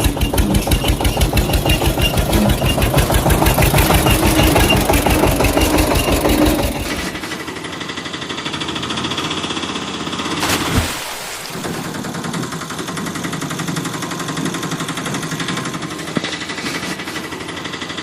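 Engine running with a loud, even chugging. About seven seconds in it switches to a quieter, steadier running sound, with a brief sweep a few seconds later.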